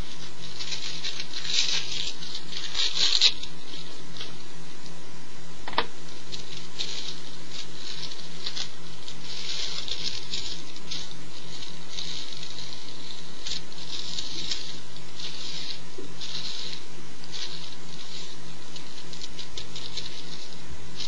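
Dry crackling and rustling in quick, irregular bursts as hands crumble and handle dry herb and paper for rolling a joint, with one sharp click about six seconds in. A steady low electrical hum runs underneath.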